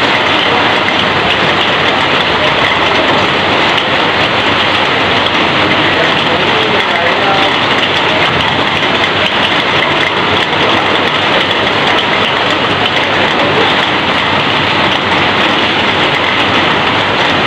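Heavy rain pouring on a corrugated sheet roof and streaming off its eaves: a loud, steady, unbroken hiss.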